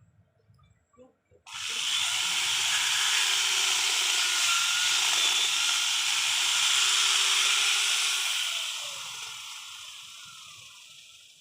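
Angle-grinder chainsaw running with a loud, steady hissing rush that starts suddenly about a second and a half in, then slowly dies away over the last few seconds.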